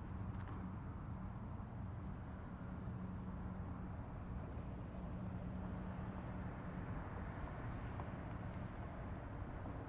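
Outdoor ambience: a faint, thin, high insect trill over a steady low rumble. The trill turns into quick pulses about two-thirds of the way in, and a couple of faint clicks are heard.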